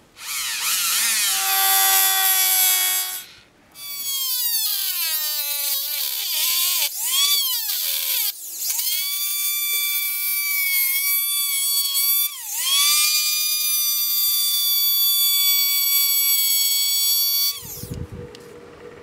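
Electric rotary tool with a small cut-off wheel cutting a slot in thin sheet metal: a high whine whose pitch sags and wavers as the wheel bites. It stops briefly about three and a half seconds in, starts again, runs steadier for a long stretch and cuts off near the end.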